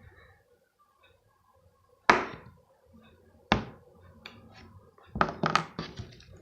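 Slime being worked by hand, giving a few sharp pops: one about two seconds in, another a second and a half later, then a quick cluster of three or four near the end.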